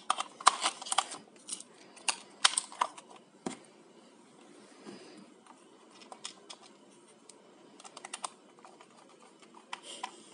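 Sharp clicks and taps of hard plastic as the battery cover of an Eachine E58 drone's remote controller is handled and fitted back, loudest in the first few seconds. These are followed by fainter scattered ticks as a small screwdriver drives the cover's screw in.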